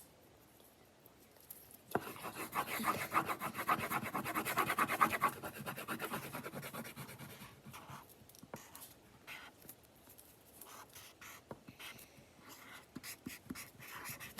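Colouring in on paper: a marker or crayon scribbled rapidly back and forth, starting about two seconds in and densest for about five seconds, then lighter, scattered strokes.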